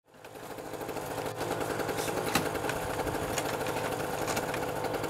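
A small engine running steadily with a fast, even pulse, fading in at the start, with a few sharp clicks over it near the middle.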